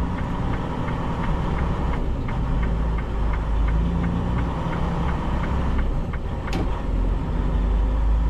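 Semi truck's diesel engine running steadily at low road speed, heard from the cab. A regular ticking, about three clicks a second, runs until about six seconds in, and a single sharp click comes shortly after.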